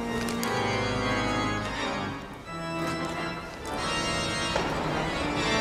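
Organ music: slow, held chords that change every second or two.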